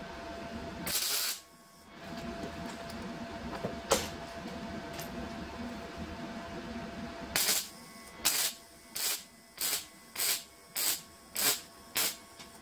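MIG welder tack-welding two pieces of sheet steel together: a short burst of arc crackle about a second in, then from about seven seconds a quick run of about nine brief tacks, nearly two a second.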